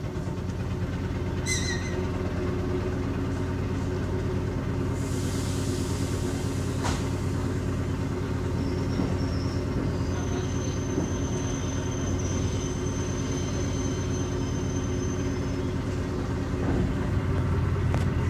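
ER9M electric multiple unit humming steadily, a low electrical drone with rumble. There is a single sharp click about seven seconds in and a faint high whine partway through.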